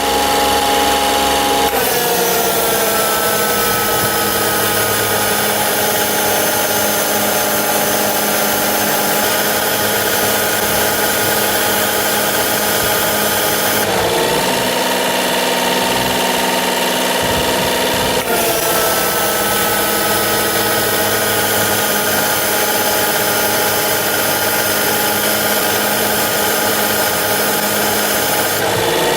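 Car air-conditioning compressor running with the engine, a steady mechanical whine over the engine note. Its pitch slides down about two seconds in, steps back up about halfway through and drops again a few seconds later.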